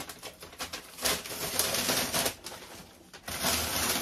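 Brown kraft paper wrapping crinkling and rustling as it is pulled open from around a potted plant, in two bursts: one about a second in, and another near the end.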